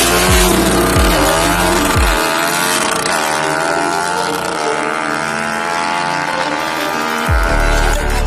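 Drag-tuned Suzuki Satria FU engine revving hard, its pitch climbing and then holding high. Background music with a pulsing bass beat runs underneath; the bass drops out about two seconds in and comes back near the end.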